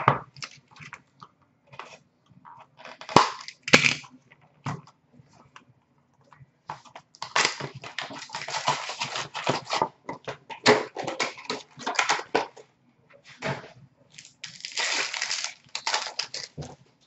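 Hockey card pack being torn open by hand: the wrapper crinkles and tears in irregular bursts, loudest about seven to ten seconds in and again near the end, with light clicks and rustles of cards being handled between.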